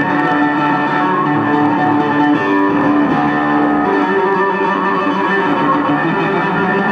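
Electric bass solo played live through a loud concert sound system: a run of held notes, changing pitch every second or so.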